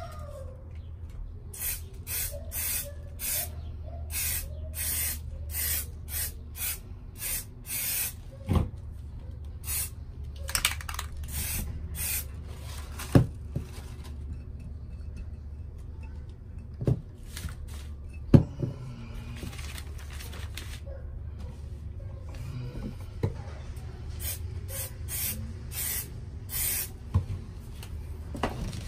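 Aerosol spray paint can spraying in many short hisses, in quick runs of bursts with pauses between. A few sharp knocks fall between the runs, the two loudest near the middle.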